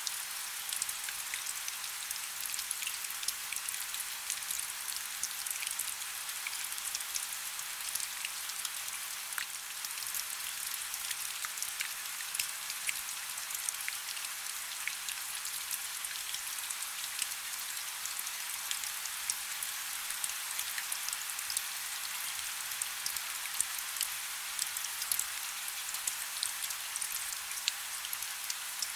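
Heavy rain falling steadily: a dense hiss made up of countless fine drop ticks, with no letup.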